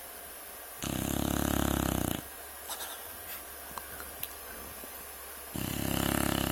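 Sleeping bulldog snoring: two long snores about four seconds apart, each a rapid flutter, the second starting near the end.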